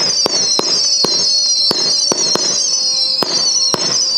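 Hallmark Fireworks 'Insidious' firework firing whistling shots: several high whistles sound together, wavering and falling slowly in pitch, over sharp bangs coming two to three a second.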